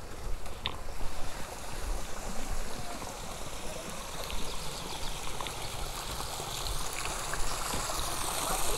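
Spring water running steadily as people fill containers at the spring, over a low rumble.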